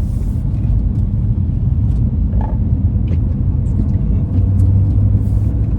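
Car cabin noise while driving: steady engine and road rumble, with the engine note growing a little stronger about four and a half seconds in.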